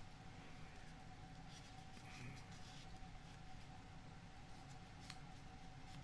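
Faint rustling and a few soft clicks of folded paper origami block units being handled and pushed into a 3D origami model, over a steady faint hum.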